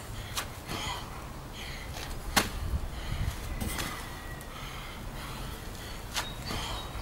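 A person doing burpees on a gravel path: hands and feet scuffing the ground and heavy breathing, with a few sharp slaps, the loudest about two and a half seconds in.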